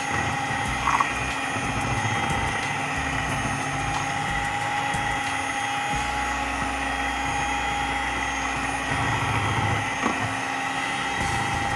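Electric hand mixer running steadily with a constant motor whine, its twin beaters whisking flour into beetroot cake batter in a bowl; a brief knock about a second in.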